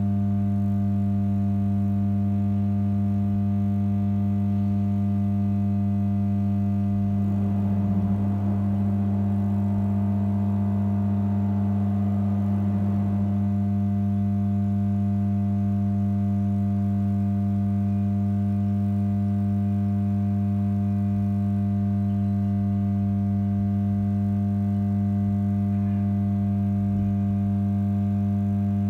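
An unexplained steady low-pitched hum, unchanging in pitch and loudness, with a string of overtones above it. A fainter rushing sound rises and falls over it from about seven to thirteen seconds in. The hum is the 'strange sound' the recordist takes to be coming from the ground.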